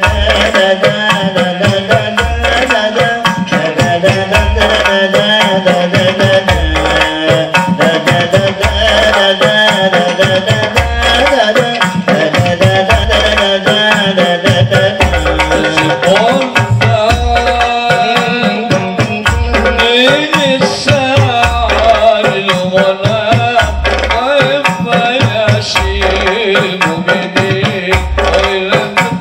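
A group of men singing together over a frame-drum ensemble, amplified through loudspeakers. Rebana frame drums keep a steady rhythm with regular deep strokes under hand-struck patterns, and jingle tambourines shake along.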